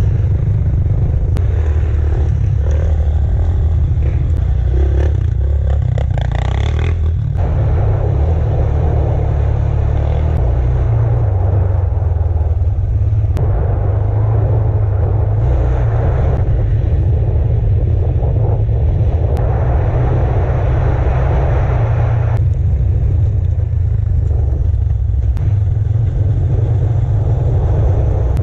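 Off-road vehicle engine running on a rough dirt trail, its level rising and falling with the throttle several times, over a heavy low rumble.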